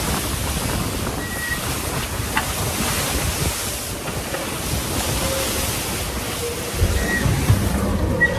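Open-ocean wind and breaking waves rushing past an IMOCA racing yacht sailing fast in a short, steep swell, with wind buffeting the microphone. A few brief faint high tones and a single click sound over it.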